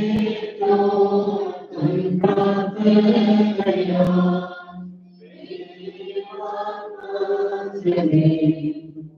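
Voices singing an Indian Orthodox liturgical chant together, in phrases with short breaks between them.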